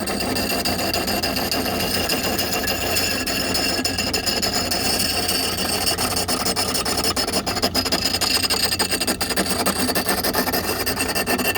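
Steel axe head held against a spinning wet natural-sandstone grinding wheel, a steady scraping rub as the edge is ground, over the steady whine of the electric drive.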